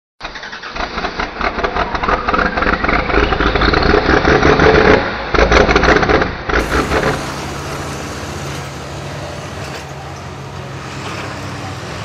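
A loud engine revving, climbing in pitch with fast pulsing, over the opening seconds. About six and a half seconds in it cuts to a steadier, quieter farm pulling tractor's engine running.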